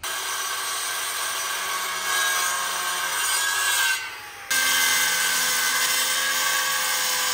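Circular saw running as it cuts through a soffit panel, a steady whine over the grinding of the blade. The sound dips briefly about four seconds in, then picks up again.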